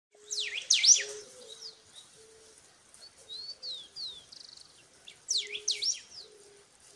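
Wild birds singing: two bursts of quick, steeply falling high chirps, about a second in and again past five seconds, with softer falling whistles between them and a soft low note repeated underneath.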